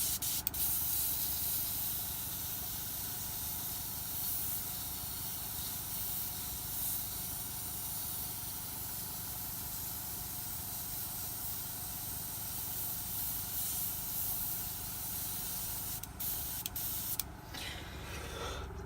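Airbrush blowing air through to flush out the last of the red paint: a steady hiss that breaks off briefly twice near the end.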